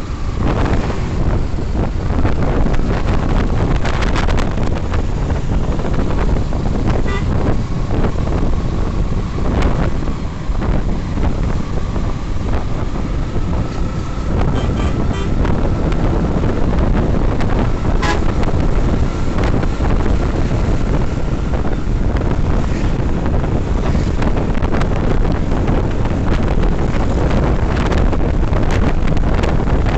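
Wind buffeting the microphone of a motorcycle riding at speed, over the steady running of the Yamaha FZS V3's engine and tyre noise.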